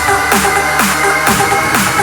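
Electronic dance music with a steady four-on-the-floor kick drum at about two beats a second, under sustained synth chords.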